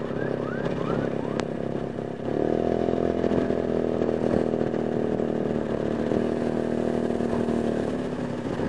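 Maxi-scooter engine running at highway speed, picked up through a helmet intercom microphone. The engine note rises and grows louder about two seconds in, then holds steady.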